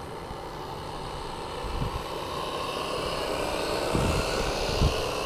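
Hand-made live-steam model speed boat's single-cylinder steam engine running at speed with a steady buzz, growing louder as the boat comes close. A few short low thumps come about two seconds in and again near the end.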